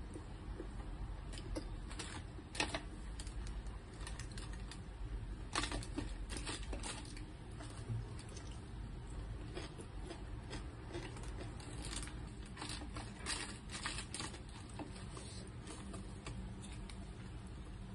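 Scattered faint crinkles and clicks of a plastic-lined paper food wrapping being handled while eating with the hands, mixed with chewing, over a low steady hum.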